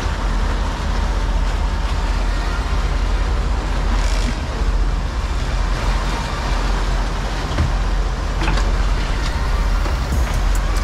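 Steady drone of the sportfishing boat's engines mixed with the rush of its wake water. A quick run of evenly spaced clicks comes near the end.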